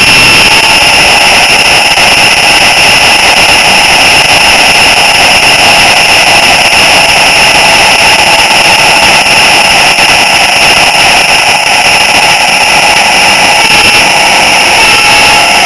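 Model train's small electric motor and gearing whining steadily as the locomotive runs, picked up close and loud by a miniature camera riding on the train, with a constant hiss over it.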